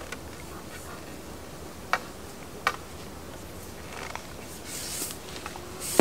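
Sharp clicks and knocks of rod and landing-net tackle, with a short rustle or splash, as a fish is netted at the river's edge, over the steady hiss of the flowing river. Two crisp clicks come a little under a second apart, and a louder knock lands at the very end.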